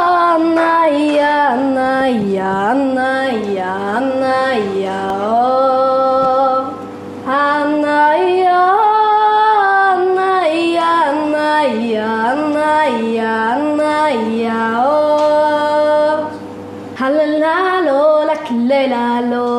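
Background music: a woman singing a slow, wordless-sounding melody in long held notes that glide between pitches, over a steady drone. The phrases break off briefly about seven and sixteen seconds in.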